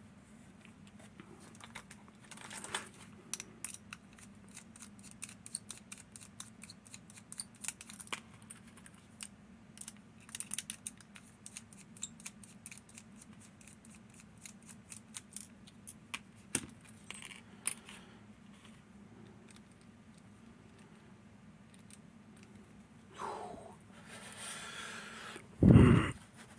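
Small metallic clicks and ticks as a Fichet 787 lever lock and its parts are handled and taken apart, in quick irregular runs that thin out after about two-thirds of the way. A loud low thump comes near the end, over a steady low hum.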